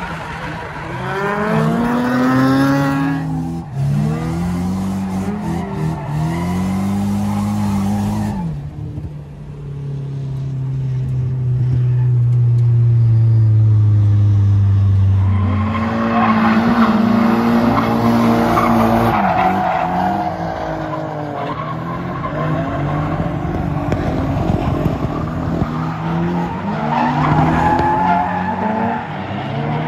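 Drift car engines revving hard up and down over and over, with tyre squeal from the cars sliding. In the middle one engine holds a long, steady note that slowly drops before the revving resumes.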